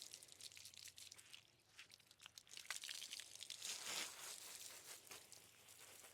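Hose water spraying faintly onto a pony's legs, a soft crackling hiss that swells briefly about four seconds in.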